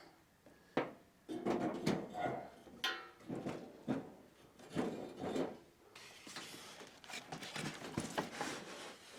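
Knocks and scraping as gas cooktop parts are handled and set in place: several sharp knocks, the clearest about a second, three and four seconds in and near the end, between stretches of rubbing.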